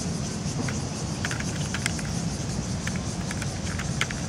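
Small scattered clicks and ticks from the plastic frame of a toy quadcopter being handled, over a steady low rumble and hiss.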